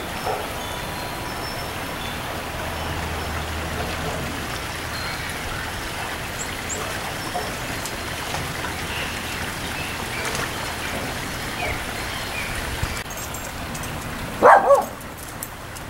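Steady outdoor hiss with scattered faint chirps and a faint low rumble for a few seconds. There is one short loud sound near the end.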